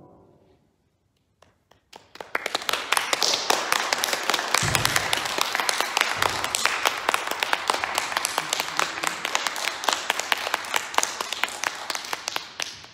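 The last chord of a grand piano dies away, and about two seconds later applause starts, a dense steady clapping that stops sharply at the end. Two low thuds come partway through.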